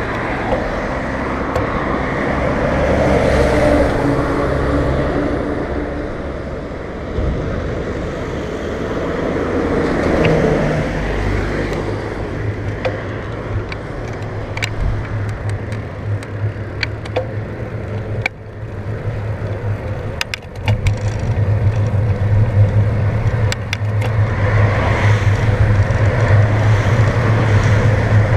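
Wind buffeting a handlebar-mounted camera's microphone and road rumble from a moving road bike, with cars passing. Scattered sharp clicks sound in the middle stretch.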